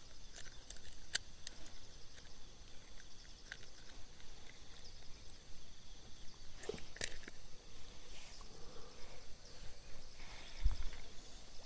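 A steady, high insect chorus, with scattered clicks and rustling from a caught fish being handled with a metal fish lip grip and put into a mesh bag. There is a dull thump near the end.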